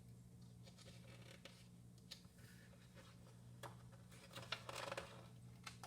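Faint rustling and light clicks of a picture book's page being handled and turned, the rustle strongest about four seconds in, over a low steady hum.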